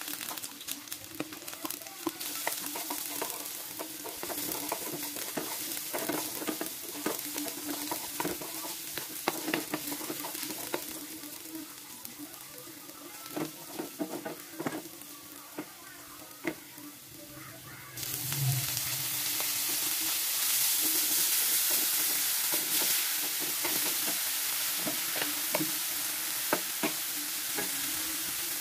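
Shallots and garlic sizzling in hot oil in a nonstick frying pan, with frequent clicks and scrapes of a wooden spatula stirring against the pan. About two-thirds of the way in the sizzle turns suddenly louder and hissier, with eggplant chunks and salted dried anchovies now frying and being stirred.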